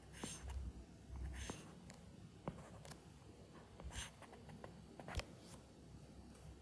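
Faint scratching and light tapping of a stylus drawing lines on a pen tablet, in a handful of short strokes with pauses between them.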